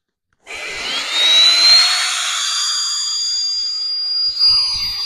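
Portable battery-powered electric air pump switched on about half a second in, its motor whine rising in pitch as it spins up and then running steadily as it pushes air through the valve of a self-inflating sleeping pad. A few low knocks come near the end.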